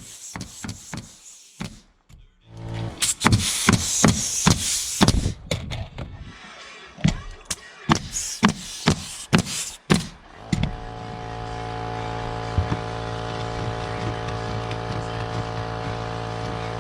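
Pneumatic roofing nailer driving nails through asphalt shingles in quick runs of sharp shots, each with a short hiss of air. About ten and a half seconds in, a motor starts and runs steadily.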